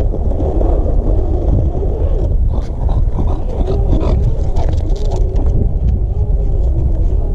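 Wind buffeting the microphone in a heavy rumble, over a wavering mid-pitched drone and scattered short clicks.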